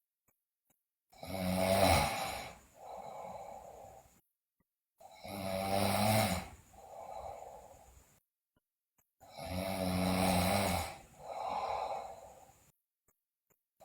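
A sleeping girl snoring loudly in a steady rhythm: three loud snores about four seconds apart, each followed by a softer, shorter snore.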